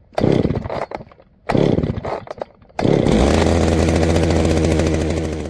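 STIHL 019T two-stroke top-handle chainsaw revved in two short blasts that fall away, then held at steady high revs for about two and a half seconds.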